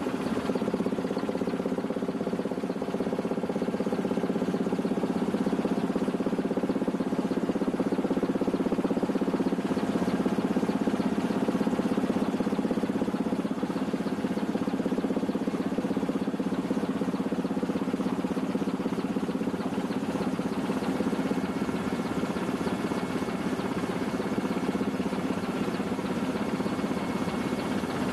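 Helicopter engine and rotor noise heard from inside the cabin with the side door open, a steady drone in flight.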